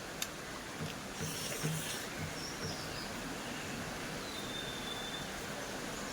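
Quiet eating sounds: a few soft clicks and a short crunchy rustle about a second and a half in, over a steady low background hum, with a couple of faint thin high chirps later on.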